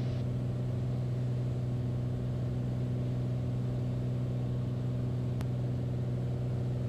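Beechcraft Bonanza's piston engine and propeller droning steadily in the cockpit on final approach. There is one faint click about five and a half seconds in.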